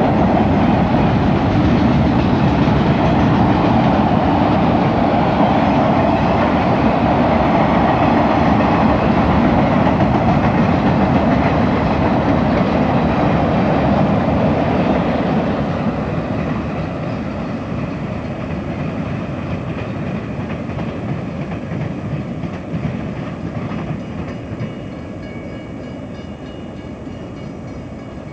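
Freight train cars rolling past on jointed rail, a steady clickety-clack of wheels over the rails. About halfway through, the bay-window caboose goes by and the sound fades as the train moves away.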